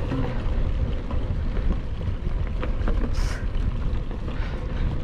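Mountain bike riding, heard through a helmet- or body-mounted camera: a steady low rumble of wind on the microphone and tyres on the trail, with a few small rattles and a short hiss about three seconds in.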